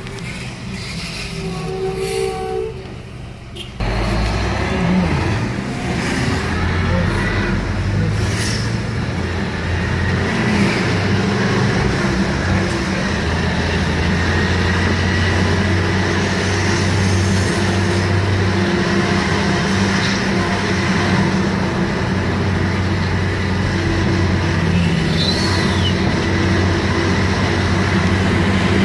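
Diesel engine of a 1985 International Eagle dump truck running under way, a steady low drone heard from a car following close behind. It gets louder about four seconds in and then holds steady.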